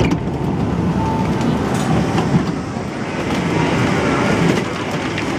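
An MTR C-Train's running noise heard from inside the car at a station platform: a steady mechanical noise, with a brief high tone about a second in.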